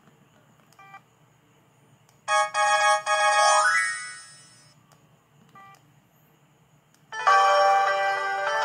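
Samsung ringtones played through a ZTE Z222 phone's loudspeaker: a short synthesized jingle about two seconds in that fades away, two faint short beeps, then another ringtone starting about seven seconds in.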